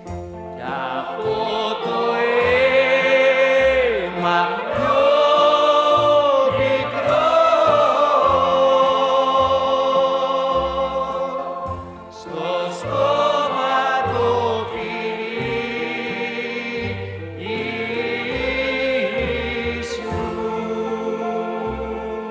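Choir singing long, sustained phrases with vibrato over instrumental accompaniment and a low bass line. The music dips briefly about twelve seconds in, then swells again.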